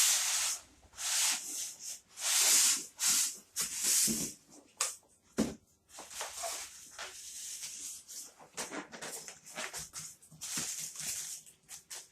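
Cardboard and plastic packaging rustling and scraping in repeated bursts as a compact air fryer is worked out of its box, with a few short knocks and clicks.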